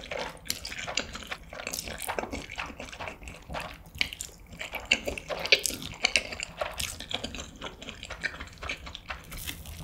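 Close-miked slurping of saucy stir-fried instant noodles, then wet, sticky chewing: a dense run of small clicks and smacks from the mouth.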